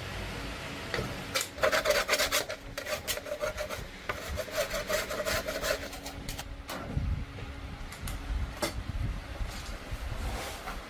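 Hand scraping on a metal machine part, rapid back-and-forth strokes like a file or wire brush working the surface. The strokes come fast for several seconds, then ease off into a few scattered scrapes.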